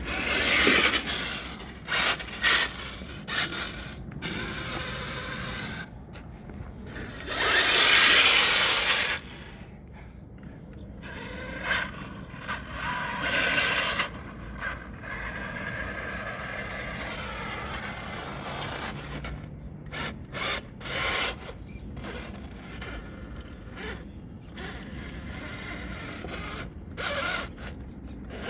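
Radio-controlled scale truck's electric motor and gears whining in bursts with the throttle, its tyres churning through dirt and mud. The loudest burst comes about eight seconds in.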